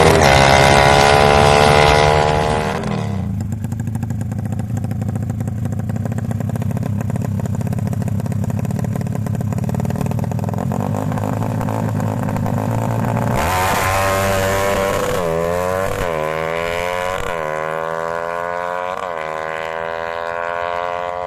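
Bored-up Kawasaki KLX single-cylinder motorcycle engine being revved on test. It is held at high revs, drops back to idle, then is blipped up several times in quick succession and settles at raised, slowly climbing revs.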